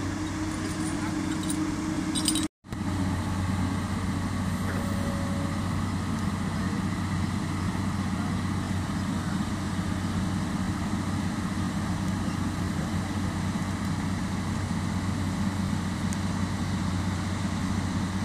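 Komatsu PC200 excavator's diesel engine running steadily, with the sound cutting out completely for a moment about two and a half seconds in.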